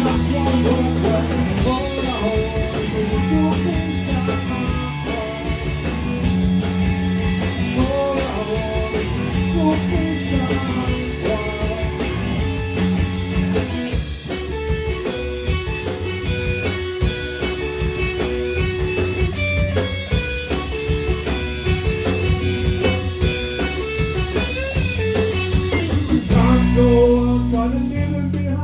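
Rock song playing, with guitar, drum kit and singing.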